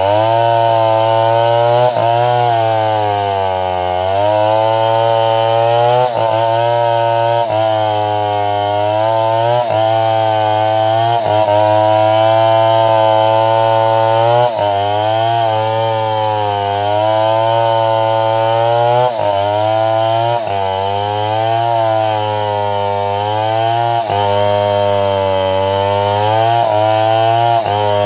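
Chainsaw running at high revs and cutting into an albasia tree trunk; the engine pitch sags and recovers every couple of seconds as the chain bites into the wood.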